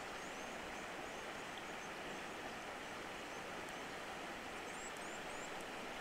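Steady outdoor ambient hiss, with faint short high chirps repeating in the background.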